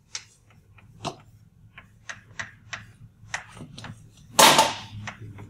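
Chalk on a chalkboard while writing: a run of short taps and clicks as letters are formed, with one longer, louder chalk stroke about four and a half seconds in.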